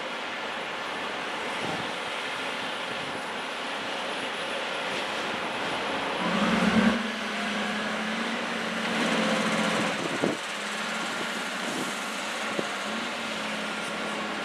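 Heavy earthmoving equipment's diesel engine revving up about six seconds in, then running steadily, with a sharp metallic clank a few seconds later. Under it is a continuous wash of surf and wind.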